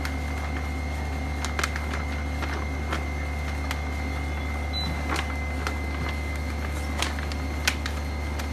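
Steady low machine hum with a faint high whine, and light clicks and taps scattered through it, about half a dozen in all.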